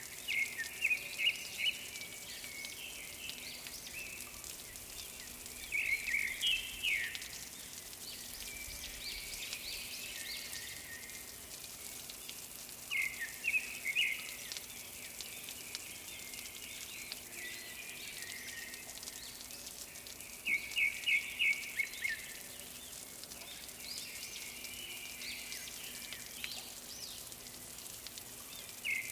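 A bird singing a short, quick phrase of rapid high notes, repeated about every seven seconds, over a steady background hiss.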